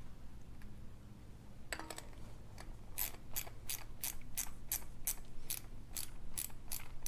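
Ratchet wrench with a 12 mm socket clicking in a steady rhythm, about three or four clicks a second, as it tightens a dirt bike wheel's rim lock nut. A short metal rattle comes just before the clicking starts.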